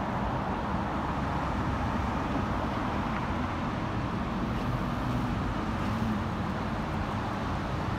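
Steady city street traffic, with cars driving past close by.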